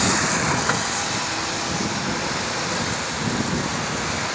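Amtrak passenger train rolling past on the track below, a steady noise of wheels on rails, mixed with wind on the microphone.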